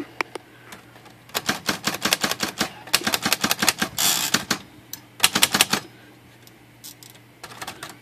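Underwood manual typewriter being typed on: a fast run of sharp key and typebar clacks starts about a second in and lasts several seconds, with a brief rasping rush partway through. A few scattered strikes follow near the end.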